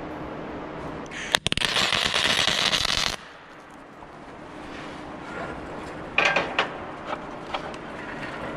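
MIG welder arc crackling for about two seconds as a nut is welded onto the broken steel chain adjuster bolt, then cutting off suddenly. A few short sharp snaps follow about six seconds in.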